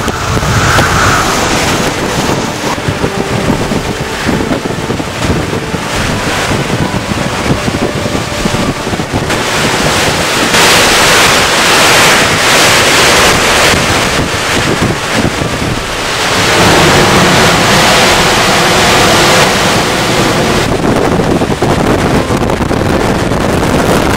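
Hurricane-force Bora wind blasting across the microphone: a loud, continuous roar that surges in gusts, strongest about ten seconds in and again around seventeen seconds.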